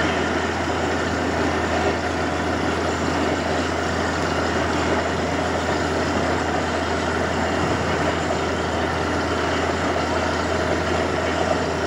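Borewell drilling rig running steadily while drilling, a constant heavy engine din, as muddy water and slurry flush up out of the bore around the drill pipe.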